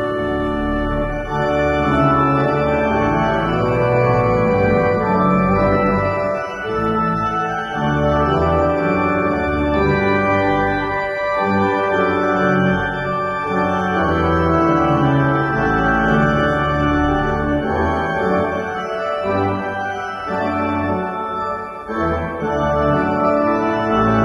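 Organ playing held chords, the harmony changing every second or two.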